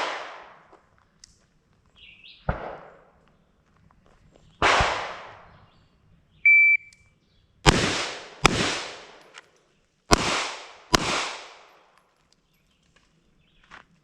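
Gunshots fired one at a time at an irregular pace, about seven in all, some in quick pairs, each followed by a trailing echo. About midway a short, steady, high beep sounds.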